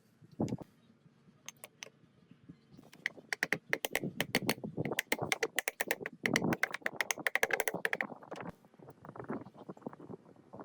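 A dense run of rapid clicks and knocks lasting about five seconds, starting about three seconds in, with a few scattered clicks before and after, as parts are handled or worked by hand.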